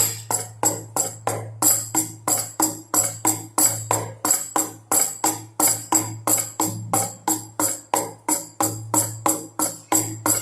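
Baby rattle and drums beating a steady, fast rhythm of sharp strikes, about three a second.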